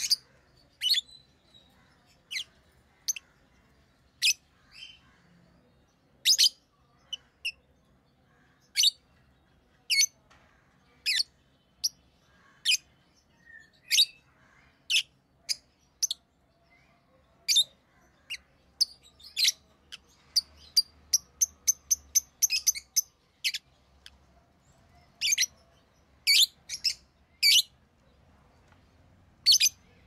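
Rosy-faced lovebirds chirping: short, shrill, high-pitched calls at irregular intervals of about one a second, with a quick run of chirps about two-thirds of the way through.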